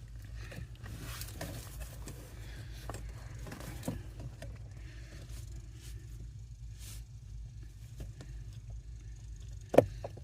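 Faint scraping and rustling of hands working at a plastic locking tab on a car's blower motor resistor, with one sharp click near the end, over a steady low hum.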